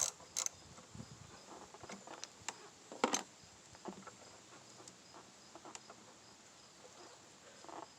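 Faint, scattered clicks and taps of a ratchet and socket working loose the ignition coil's hold-down bolt, with one sharper click about three seconds in.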